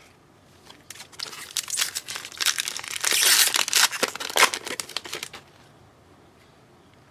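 Foil wrapper of a trading-card pack crinkling and tearing as it is opened by hand, a dense crackle lasting about four and a half seconds, loudest near the middle, stopping about five and a half seconds in.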